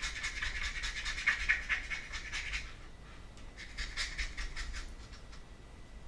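A stiff paintbrush scratching in quick, soft back-and-forth strokes over the paper-covered roof of a small wooden model, dry brushing light gray paint onto it. The strokes come in one spell, stop briefly about three seconds in, start again for a second, and then fade.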